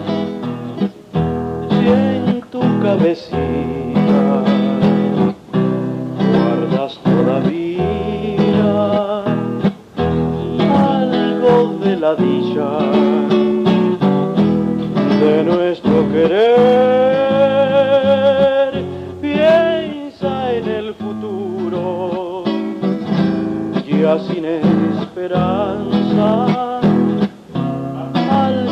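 Acoustic guitar music, plucked and strummed, with a melody line that holds one long wavering note about two-thirds of the way through.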